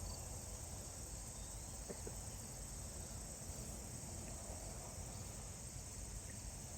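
Steady high-pitched chorus of crickets, a continuous even trill over a faint low rumble.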